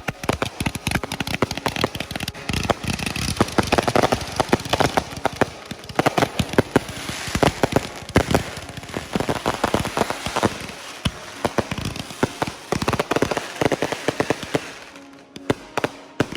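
A ground-lit consumer firework going off in a long, dense run of rapid cracks and pops, dozens a second at times, before dying away near the end.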